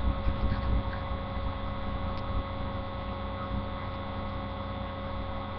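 Steady electrical hum with background hiss from a webcam microphone, with a few soft low bumps in about the first second.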